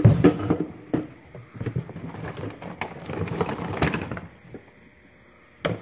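Gloved hands rummaging in a cardboard box of household odds and ends: cardboard rustling, and objects clicking and knocking together as a pig-shaped cookie jar is lifted and moved. It goes quieter after about four seconds, then one sharp knock near the end.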